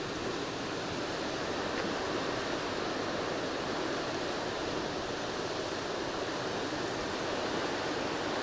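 Steady rushing of a creek waterfall: an even hiss of falling water with no pauses or changes.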